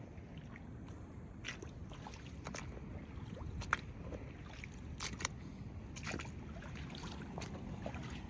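Low, steady rumble of ocean surf on a rocky shore, with a handful of scattered sharp clicks and taps.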